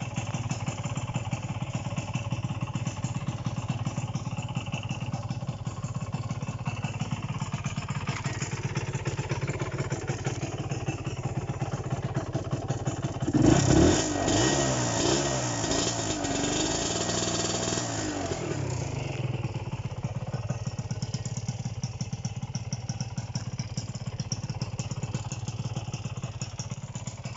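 Kawasaki AR125R's two-stroke single-cylinder engine idling with a fast, even beat. About halfway through it is revved up and down several times, then settles back to idle.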